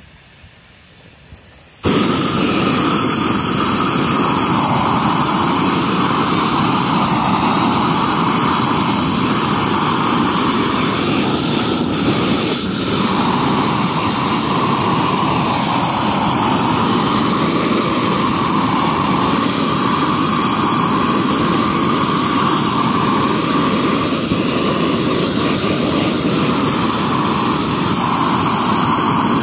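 Propane weed-burner torch: a low hiss, then about two seconds in it jumps to a loud, steady burner-flame rush that holds without a break.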